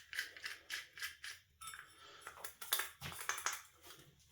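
A run of small, irregular clicks and clinks, with a few duller knocks after about three seconds: hard parts being handled.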